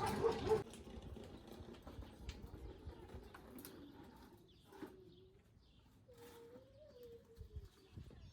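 A dove cooing: a short low coo about five seconds in, then a longer wavering coo that rises and falls, over a few faint knocks.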